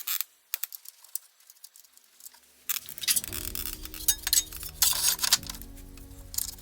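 Scattered sharp metallic clicks and clinks of hand tools and fasteners being handled. Background music comes in about three seconds in.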